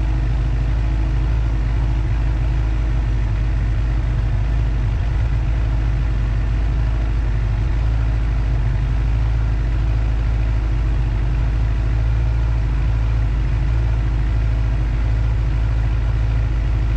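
A 2022 Suzuki GSX-R750's inline-four engine idling steadily after being started, settling at idle with a Sprint P08 air filter freshly fitted. There are no revs.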